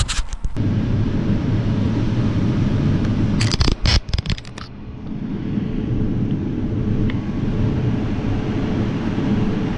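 Diesel harvest machinery running steadily with a low drone. A cluster of sharp clicks comes about three and a half to four and a half seconds in, after which the drone dips and builds back up.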